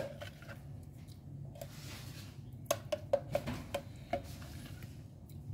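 Light knocks of a plastic blender jar tapped against the rim of a bowl while thick hummus is tipped out of it: a few scattered knocks, then a quick run of about six in the second half.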